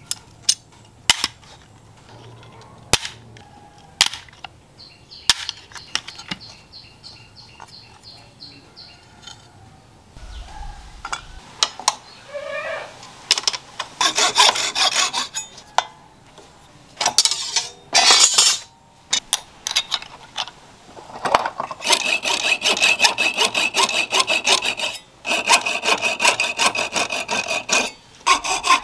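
A hammer tapping an aluminium profile on a wooden block, a scattering of sharp knocks. Then a hacksaw cutting the aluminium profile held in a vise, first in short bursts of strokes from about halfway, then in steady back-and-forth strokes near the end.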